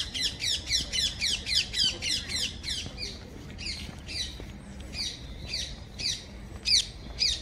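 A bird calling: a fast run of harsh, downward-sweeping notes, about four a second, slowing about three seconds in to roughly two a second, with the loudest two notes near the end.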